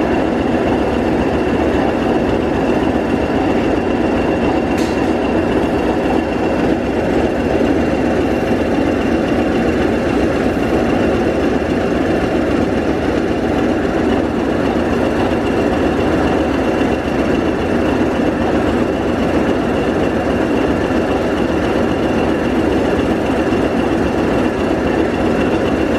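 Class 20 diesel-electric locomotive's English Electric eight-cylinder turbocharged diesel engine idling at a standstill: a steady drone with a constant high whistle over it.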